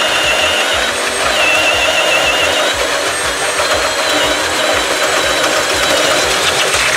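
Ridgid 18V brushless high-torque hammer drill boring a large hole in wood with a 2 9/16-inch Switchblade self-feed bit under heavy load: a steady motor whine over the grind of the bit cutting wood.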